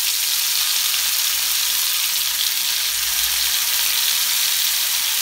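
Yogurt-marinated chicken drumsticks sizzling steadily in hot oil in a frying pan.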